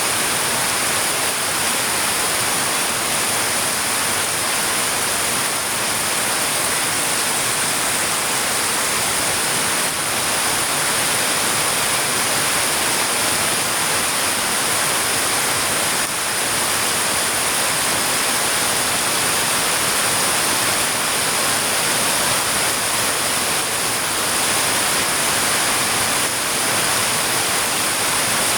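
Heavy rain falling, a steady even hiss with no single drops, thunder or other events standing out.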